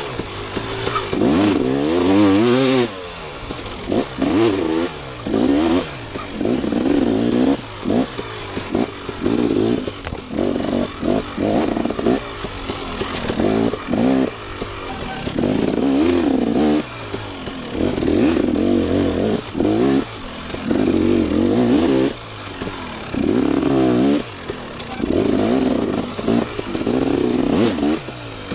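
Dirt bike engine being ridden hard: repeated bursts of throttle with the pitch climbing on each one, chopped off and picked up again every second or two.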